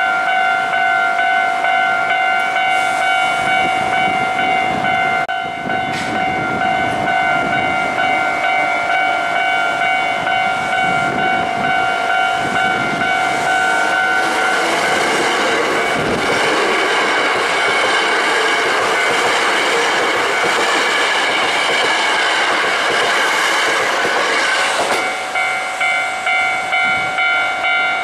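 A Japanese level-crossing alarm bell ringing its repeated electronic warning tone. About halfway through, a Hankyu 5300 series electric train passes over the crossing, and for about ten seconds its running noise on the rails drowns out the bell. The bell is heard again near the end.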